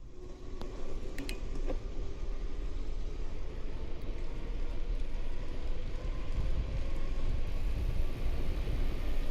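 Rumble and rush of wind and rolling tyres on a mountain bike's POV camera as the bike sets off and picks up speed, growing louder over the first couple of seconds, with a few short clicks near the start.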